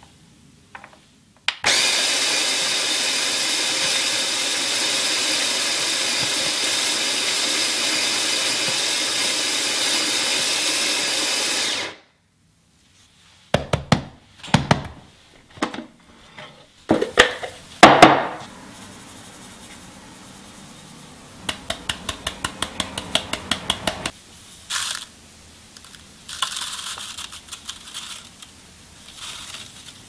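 OXO BREW conical burr coffee grinder's motor running steadily for about ten seconds, grinding beans, switching on and off abruptly. It is followed by several loud knocks and clatters, then a quick run of light tapping.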